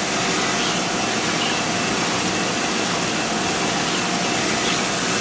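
Steady, even whir of a CNC surface grinder's motors and pumps running idle, before the grinding cycle starts, with a few faint steady tones in it.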